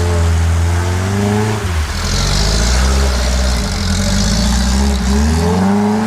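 An engine revving up and down, its pitch rising and falling several times over a steady low drone, with a hiss in the middle of the stretch.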